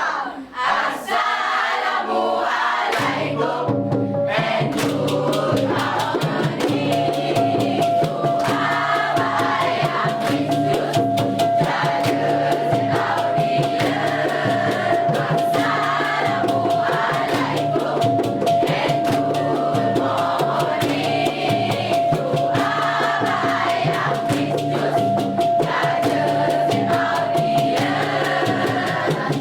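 Dikir barat group performance: group singing over fast percussion and a repeating drum beat, with a steady high tone held through most of it.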